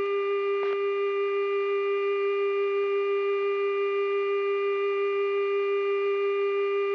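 Steady electrical hum inside a KC-135 flight deck: one unchanging mid-pitched tone with fainter overtones above it. A light click comes under a second in.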